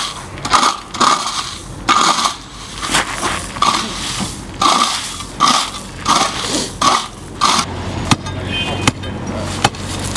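Flat steel scraper dragged repeatedly through loose pea gravel, scraping and crunching in irregular strokes. Near the end the scraping stops and three sharp metallic taps follow over a low steady hum, fitting a steel bar knocked against block paving.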